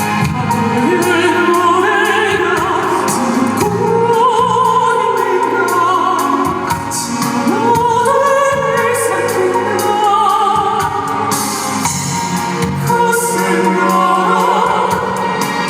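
Classical crossover vocal group, including a countertenor, singing an operatic-style song with vibrato over instrumental accompaniment.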